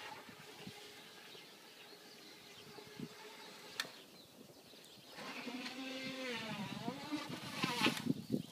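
Electric motor of a Yedoo electric kick scooter whining, starting about five seconds in, its pitch rising and falling as the wheel spins in snow. Before that, faint noise with a few sharp clicks.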